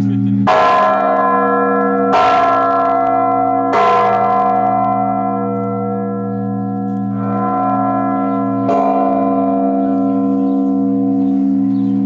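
A large new church bell struck by its clapper, pulled on a rope, five times: three strokes about a second and a half apart, then after a pause a softer stroke and a stronger one. Each stroke leaves a long, deep ringing hum that carries on under the next.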